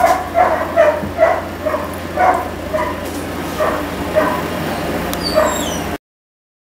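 Two-and-a-half-week-old Weimaraner puppy whimpering and yipping in short, high cries, about two a second, until the sound cuts off suddenly near the end.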